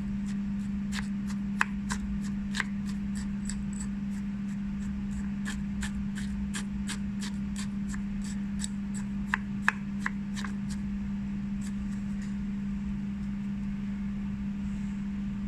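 Metal spatula clinking and scraping against a glass beaker while stirring sodium acetate crystals into a little water, in quick irregular taps that stop shortly before the end. A steady low hum runs underneath throughout.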